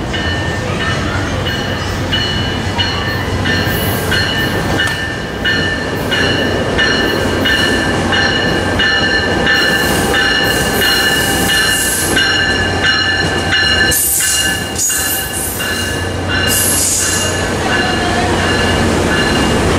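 Tri-Rail double-deck commuter train pulling into the station and slowing: a steady engine rumble and the noise of wheels on rail as the coaches roll by, with brief high squeals as it brakes. A bell rings in an even rhythm, about twice a second.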